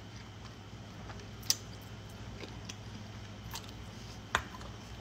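Person quietly chewing spicy ramen noodles, with two sharp clicks, one about a second and a half in and one a little past four seconds, over a low steady hum.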